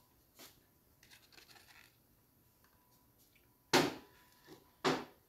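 Aluminium foil crinkling and rustling, with a few faint rustles first and then two short, loud crinkles about a second apart near the end.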